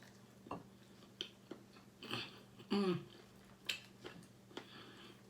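Close-up chewing and biting of chicken: a string of short, irregular crunches and mouth clicks, with a brief voiced 'mm' a little before halfway.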